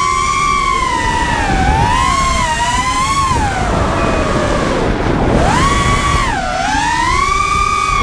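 Racing quadcopter's brushless motors and tri-blade props whining, recorded onboard, the pitch rising and falling with the throttle and dropping sharply twice: near the middle and about six and a half seconds in. Wind rushes over the microphone underneath.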